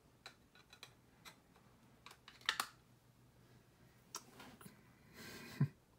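Hard plastic trading-card cases clicking and clacking as they are handled and set down on a stack: sparse, irregular clicks, loudest about two and a half seconds in, with a short rustle and a low knock near the end.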